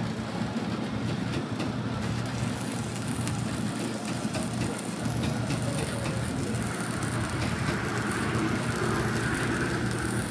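Stick welding: the electrode arc crackling and sizzling over a steady low mains hum, with scattered sharp pops. The crackle grows brighter and a little louder in the second half.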